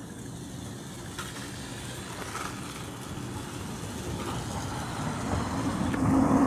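A van driving past on the street, its engine and tyre noise rising to a peak near the end, over a steady low traffic rumble.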